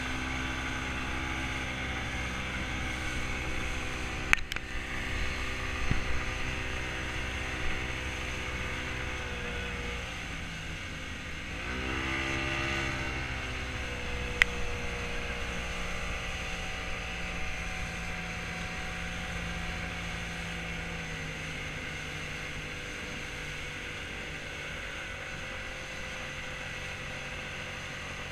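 50 hp outboard motor running at speed, its tone dipping and climbing back about ten seconds in as the throttle is eased and reopened, over the rush of water and wind. A couple of sharp knocks come about four and fourteen seconds in.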